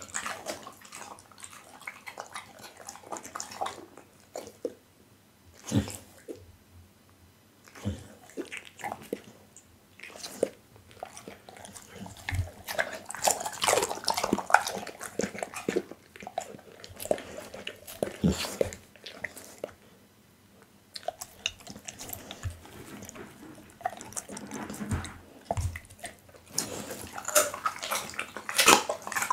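Pit bull chewing raw meat close to a microphone: wet smacking, squelching bites and lip-licking in irregular bursts, with a few short pauses.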